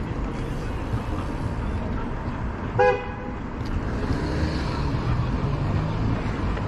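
A single short horn toot about three seconds in, one clear pitched note lasting a fraction of a second, over a steady low rumble of traffic and wind.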